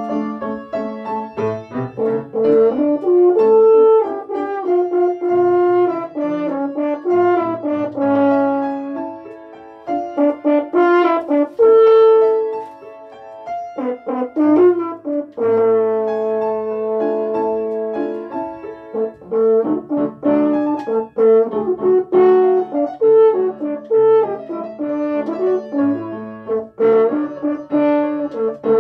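French horn playing a slow melody of held and moving notes, with piano accompaniment underneath.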